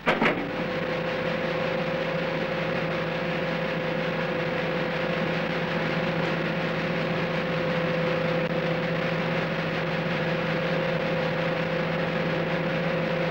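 A heavy clunk right at the start, then a steady engine drone with a constant low hum that does not change in pitch, heard inside a ferry's enclosed car deck.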